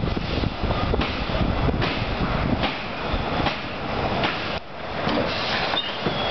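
Wooden roller coaster train rolling along the track into the station, its wheels rumbling and clacking irregularly, with a short dip in the noise about two-thirds of the way through.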